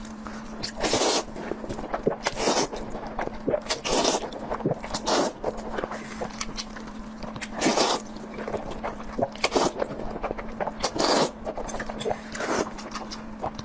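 Close-miked chewing and biting of food, with a loud crunch every second or two between smaller wet crackles, over a faint steady hum.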